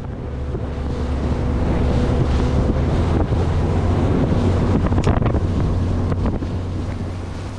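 Bass boat's outboard motor running under way, building up over the first couple of seconds into a steady low drone, with heavy wind buffeting the microphone. A few sharp knocks come about five seconds in, and the sound eases off near the end.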